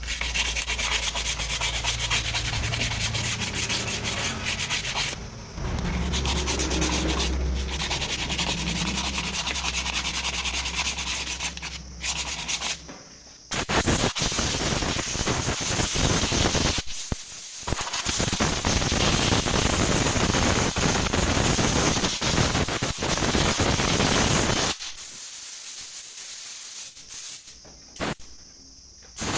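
Abrasive sanding and scrubbing on drum brake parts: dense, rasping rubbing strokes in several stretches, each starting and stopping abruptly.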